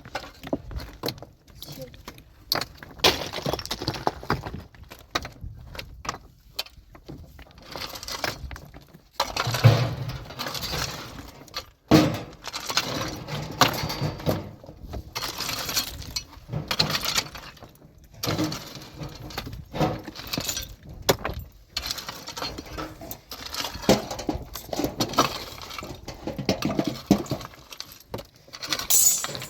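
Stones knocking and clattering against one another as rubble is cleared by hand, in irregular strikes and scrapes, with voices talking at times.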